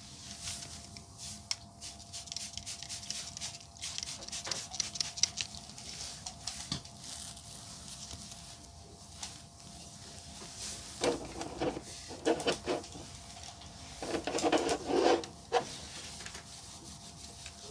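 Trigger spray bottle spritzing cleaner onto a glossy plastic trim piece in a run of quick short sprays. Later comes a microfiber towel rubbing back and forth over the plastic in several louder strokes.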